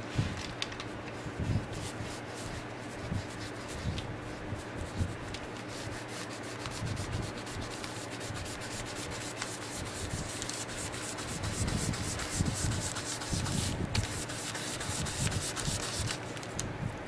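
A cloth pad rubbed briskly back and forth over a tooled leather belt, working dark colour into the leather: a continuous scratchy rubbing, busier and louder in the second half.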